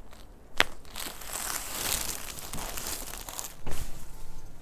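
A chiropractic lower-back adjustment. A sharp crack comes about half a second in, then rustling as the body shifts, and a heavier thump with crunching near the end as the thrust goes in.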